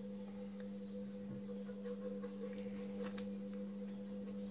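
A steady electrical hum, with a few faint clicks and taps of small plastic keyboard parts being handled.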